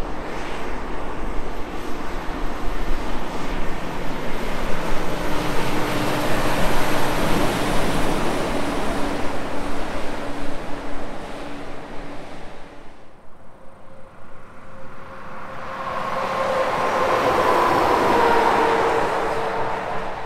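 Semi-trucks passing at highway speed: diesel engine and tyre noise swell and fade. After a brief lull, another truck approaches and goes by loudly near the end, its tone dropping slightly as it passes.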